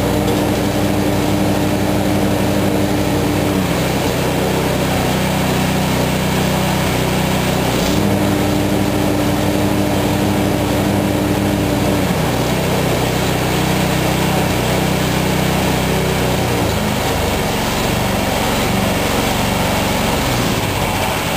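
John Deere 1032 snowblower's engine running steadily after being adjusted to its factory-specification RPM. Its speed steps down about 3.5 s in, comes back up about 8 s in, drops again about 12 s in, and runs unevenly near the end.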